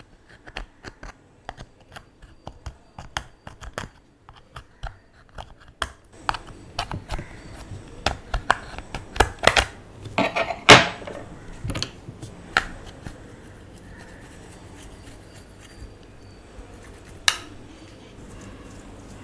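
Small hard objects being handled at close range: a quick run of sharp clicks and taps that gets louder and busier in the middle, with one loud knock about eleven seconds in, then thins out.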